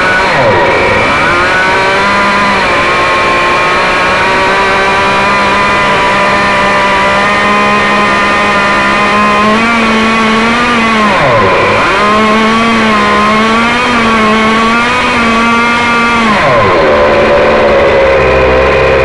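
K&B .91 two-stroke glow engine driving a Byrojet ducted fan, running at high speed with a high-pitched engine whine. Its speed dips and picks back up near the start and again about halfway through, then drops to a lower, steady speed near the end.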